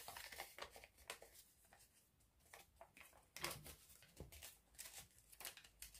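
Faint rustling and crinkling of colored origami paper as hands fold and crease it, in short scattered bursts.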